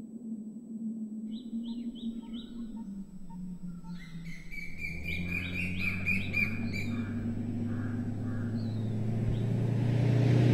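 Birds chirping in quick repeated calls, sparse at first and then a dense run of higher chirps, over a low steady hum. A low rumble builds toward the end.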